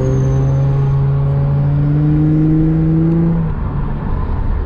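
Acura TL's 3.7-litre V6 engine pulling under acceleration, its note climbing steadily in pitch, then dropping away about three and a half seconds in as the revs fall off.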